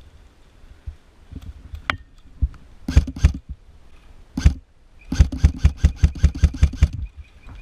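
Airsoft electric rifle firing: two quick shots, a single shot, then a rapid string of about a dozen shots at roughly six a second.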